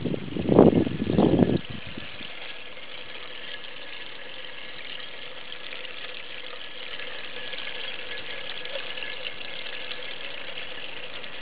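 Small garden-pond fountain splashing steadily onto the water surface. Two brief louder bursts come about a second apart near the start.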